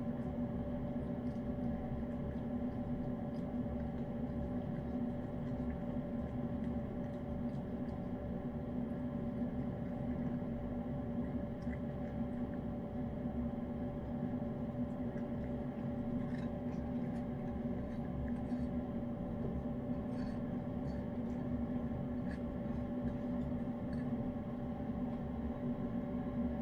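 Steady hum of an electric fan running, with faint small clicks of a cat licking and eating wet food.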